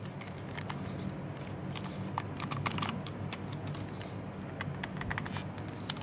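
Screwdriver tightening the silver terminal screw on a GFCI outlet to clamp the white neutral wire: small irregular clicks and ticks of the screwdriver working the screw.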